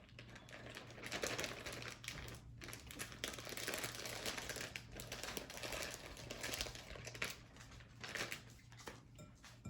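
Crinkling and rustling of a bag being emptied of thawed shredded zucchini, with paper towel handled, as a steady crackle of small clicks.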